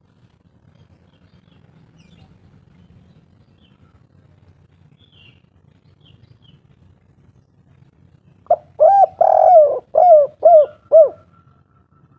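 Spotted dove (derkuku) cooing one 'kuk 3' phrase near the end: a short note, a longer drawn-out coo, then three short 'kuk' notes in quick succession.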